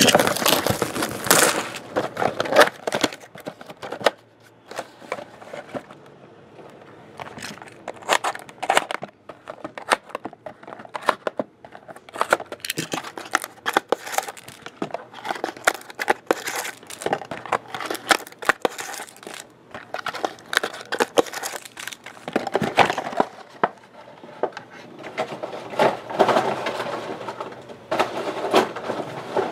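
Plastic shrink wrap crinkling and tearing while a cardboard trading-card box is opened and its wrapped packs are handled, making a busy run of small crackles and taps. It is heaviest at the start and again near the end.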